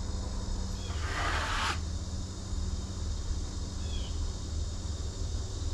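Wood-Mizer LT35 sawmill's engine idling with a steady low hum, insects droning over it, and a short scraping sound about a second in.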